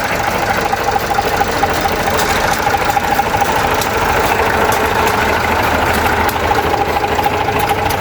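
Massey Ferguson 35X tractor engine idling steadily while it warms up, still short of full operating temperature.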